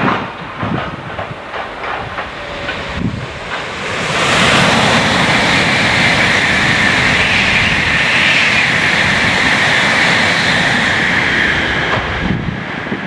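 Train passing through a station: wheels clacking over rail joints, then about four seconds in a louder, steady rushing noise with a high hiss that eases off near the end.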